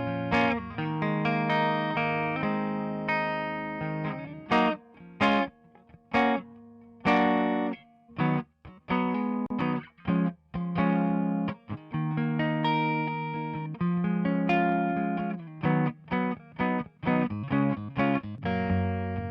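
Electric guitar playing chords through a tape emulation plugin, Slate Digital's Virtual Tape Machine. Held, ringing chords at the start and end, with short choked stabs and brief gaps through the middle.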